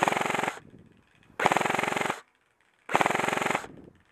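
Classic Army ECS M4 airsoft electric gun firing three short full-auto bursts, each well under a second long. Its high-speed motor drives standard 18:1 gears at about 25 rounds a second.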